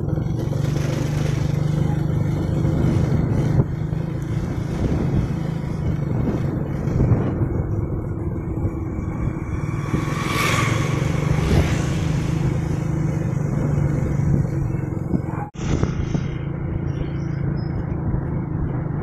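Motorcycle engine running steadily at low road speed, with road and wind noise, heard from on the bike. About ten seconds in, another motorcycle passes with a brief hiss, and the sound cuts out for a split second about fifteen seconds in.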